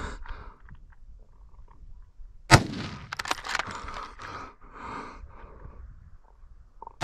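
A single loud hunting rifle shot about two and a half seconds in, followed by a few fainter sharp cracks.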